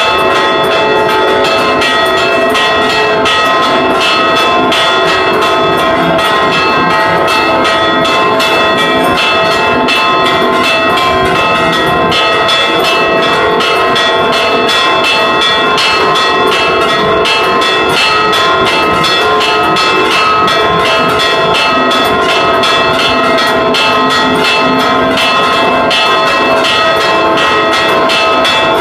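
Church bells rung by hand in a fast Mexican repique, their clappers pulled on ropes so they strike in rapid, unbroken succession while the bells' tones ring on together. Loud, heard from right under the bells.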